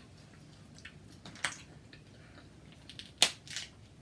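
Seafood boil shellfish being cracked and picked apart by hand: a few sharp shell clicks and snaps, the loudest a little after three seconds in.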